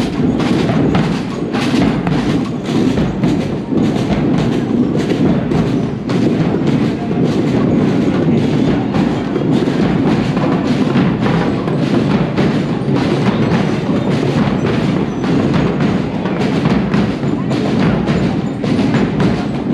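Parade marching band playing, drums and percussion keeping a steady, quick beat.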